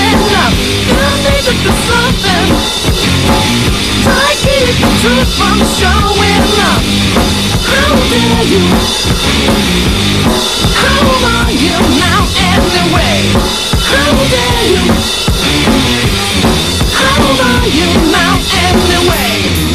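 Music with a drum kit beat.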